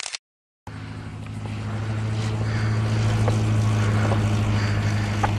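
Single-engine high-wing light propeller airplane passing low overhead, its engine drone cut off for half a second near the start, then growing louder over the next two seconds and holding steady. A couple of sharp clicks near the end.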